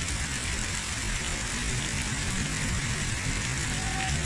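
Steady rushing noise of heavy rain and floodwater pouring over a low wall, with a constant low rumble underneath.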